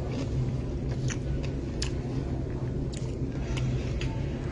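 A person chewing and eating, with scattered small clicks, over a steady low hum.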